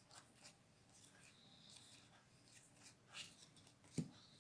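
Faint rustling and sliding of Magic: The Gathering trading cards handled in a stack, a few light ticks and a short rustle, then a sharper tap near the end.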